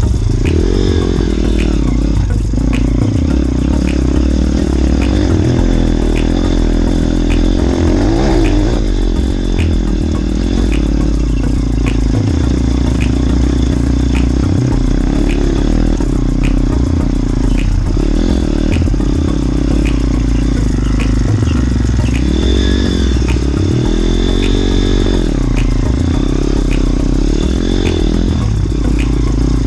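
Small motorbike engine running on the move, its revs rising and falling several times, with a faint ticking about once a second.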